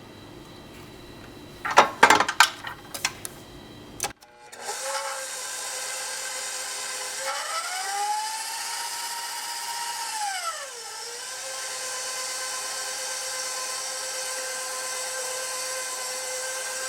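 A few clinks and knocks against the bowl, then an electric mixer starts up about four seconds in, mixing cake batter. Its motor whine rises in pitch for a couple of seconds and drops back, then runs on steadily.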